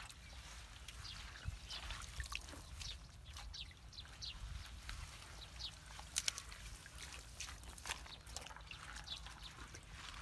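Wet pine needles, sticks and debris rustling and crackling as they are pulled by hand out of a clogged culvert's muddy water, with small splashes. There are frequent short crackles and clicks over a low, steady rumble.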